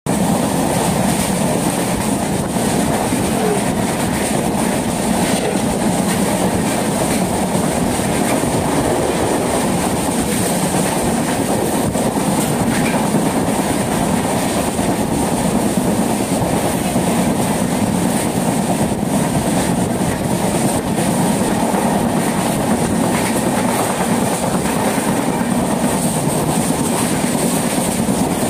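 Train in motion heard from inside a carriage by the window: the steady rumble and clatter of the wheels on the track.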